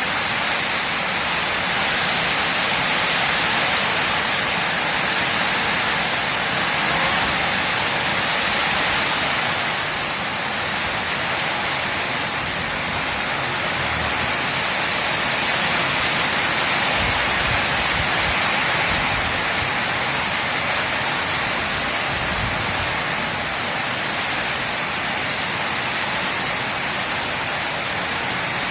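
Heavy rain pouring steadily in a rainstorm, a dense even hiss.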